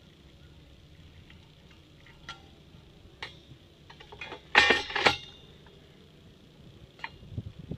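Metal trench drain grates clanking: a few light metallic clicks, then two loud clanks a little past the middle, and more clicks near the end.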